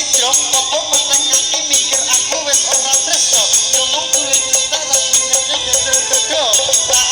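Background music: a rapid rattling percussion beat, about four to five hits a second, under a wavering melody.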